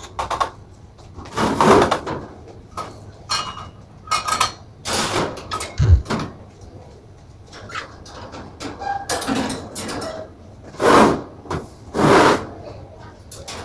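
Irregular clatter, knocks and scraping from household chores, with a short low thud about six seconds in and the loudest clatters near the end.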